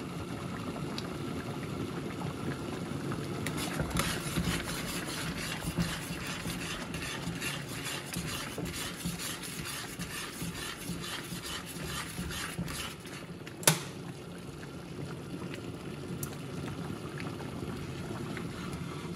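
Vegetable Manchurian gravy boiling in a wok: a steady bubbling with many small pops, and a single sharp click about two-thirds of the way through.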